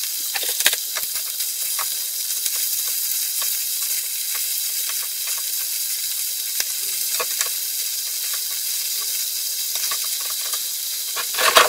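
Chicken liver sizzling steadily in a large frying pan, with short clicks and scrapes of a wooden spatula and fork as the pieces are turned over partway through frying.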